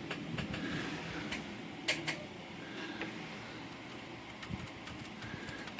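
Scattered light metallic clicks and taps from a screwdriver working on a manual typewriter's mechanism, with two sharper clicks about two seconds in.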